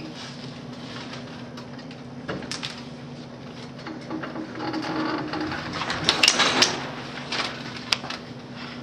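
A steady low hum with scattered clicks and knocks, and a busier stretch of rustling and knocks around six seconds in.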